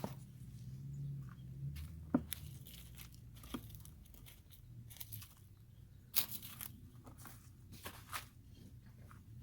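Hands rummaging through potting soil and old plant debris in a bucket to dig out potatoes: scattered crunches, rustles and tearing sounds, the sharpest about two seconds and six seconds in.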